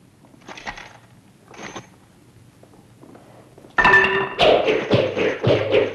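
Nunchaku swishing through the air as they are swung: two single swishes in the first two seconds. Near the end a sudden loud pitched sound is followed by a fast run of swishes, about four a second.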